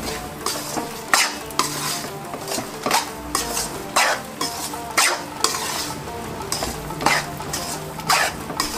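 Spatula scraping round a metal kadhai, stirring atta roasting in ghee with coconut and melon seeds, about one scrape a second over a steady sizzle of the frying flour.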